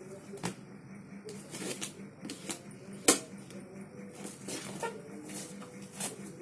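Hands working at a plastic-wrapped cardboard mattress box: irregular scraping and clicking of cardboard and wrapping, with one sharp snap about three seconds in.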